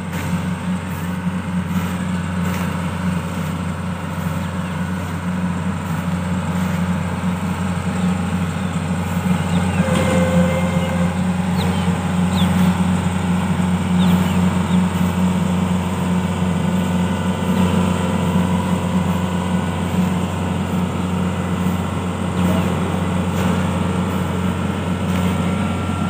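Tracked mini rice combine harvester's engine running steadily with a strong low hum while it unloads grain through its raised auger into a trolley. It grows louder about a third of the way in as the machine drives closer.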